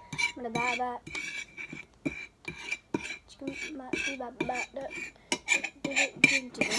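A spoon stirring and scraping in a bowl, clinking against the sides about three to four times a second with a short ring at each stroke, really loud.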